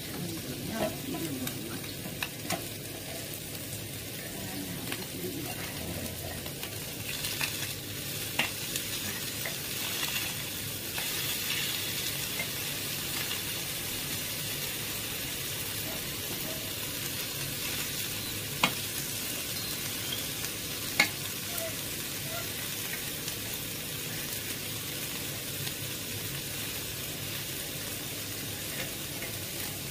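Small whole fish frying in hot oil in a kadai, with a steady sizzle. A metal spatula stirs and scrapes them, and now and then clicks sharply against the pan.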